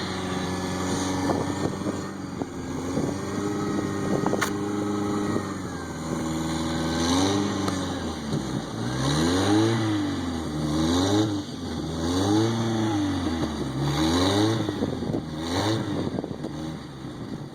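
1995 Jeep Wrangler's engine running steadily, then revving up and down about five times in a row, roughly every second and a half, as the Jeep tries to work its way out of deep snow where it is stuck. A single sharp click sounds about four seconds in.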